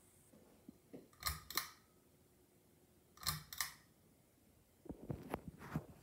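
Ceiling fan running quietly with a faint steady hum. Two pairs of sharp, ringing clicks, each pair about a third of a second apart, come about two seconds apart, followed by a few softer knocks near the end.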